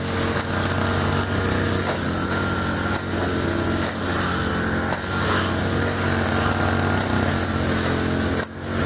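Small petrol engines of brush cutters running steadily at working speed while cutting grass, with a brief break near the end.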